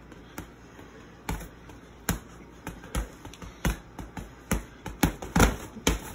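Padded boxing gloves landing punches: a string of sharp smacks that come faster and louder near the end.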